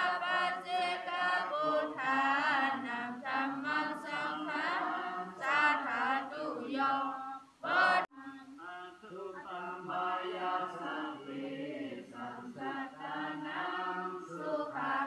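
A group of voices chanting Buddhist prayers in Pali in unison, in a steady recitation tone, with a brief break about eight seconds in.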